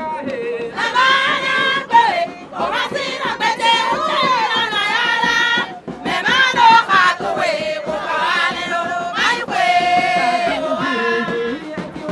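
A crowd of women singing together in chorus, high voices in phrases of a few seconds with short breaks between them.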